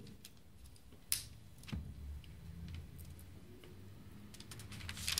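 Faint handling of the pages of a Bible: a few soft clicks, two of them a little after a second in, and light paper rustling.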